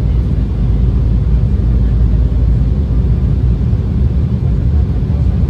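Steady low rumble of a jet airliner's cabin on descent for landing: engine and airflow noise heard from a window seat, unbroken.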